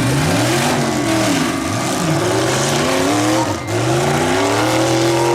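Several demolition derby cars' engines revving up and dropping back again and again, overlapping one another.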